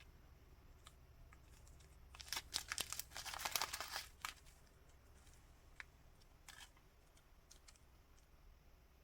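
Small plastic packets crinkling as they are handled: a dense run of quick crackles for about two seconds starting a couple of seconds in, then a brief rustle a little later and a few faint ticks.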